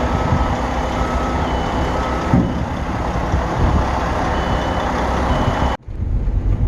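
Truck reversing alarm beeping about once a second over a diesel truck engine running. The sound cuts out abruptly near the end, then the engine noise resumes.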